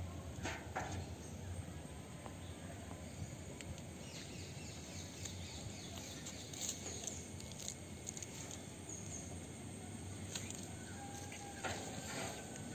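Faint outdoor ambience in the countryside: a steady hiss with a few faint chirps and occasional brief clicks.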